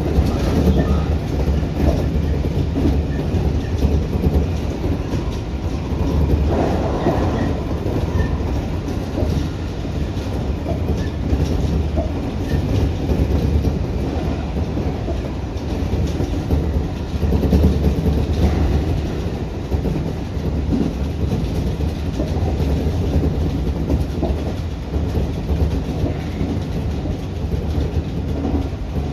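Tobu Urban Park Line local electric train running along the line, heard from inside the front of the car: a steady rumble of steel wheels on the rails with clickety-clack over the track.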